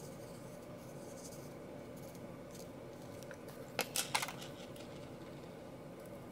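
Three sharp clicks and taps close together about four seconds in, as a pencil is set down on the tabletop and metal craft scissors are handled. A faint steady hum lies underneath.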